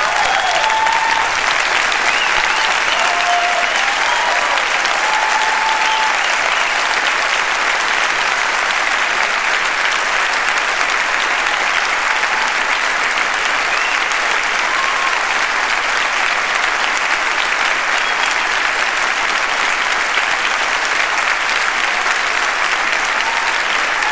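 Large audience applauding steadily, with a few brief shouts in the first several seconds.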